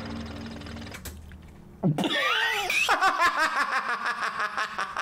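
A man laughing hard in quick, even pulses, starting about three seconds in. A short voice-like sound with a swooping pitch comes just before it, about two seconds in.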